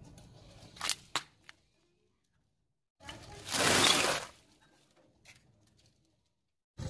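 Car tyre rolling over a small plastic box, which cracks with a few sharp snaps about a second in. Then a bag of thin dry sticks crunches and crackles loudly under the tyre for about a second.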